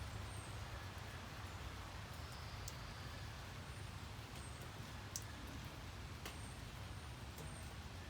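Steady rain with scattered drop clicks over a low rumble, and several short high chirps.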